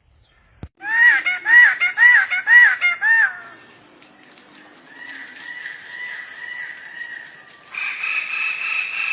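Bird calls: five loud, evenly spaced arched notes about half a second apart, followed by a run of softer, quicker notes and a steady high tone near the end.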